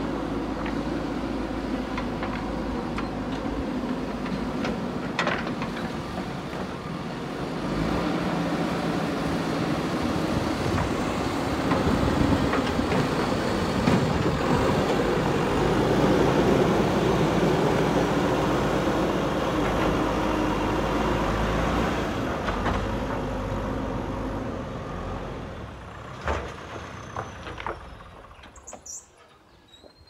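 JCB backhoe loader's diesel engine running steadily, getting louder about a quarter of the way in and fading away near the end, with a few sharp knocks as it dies down.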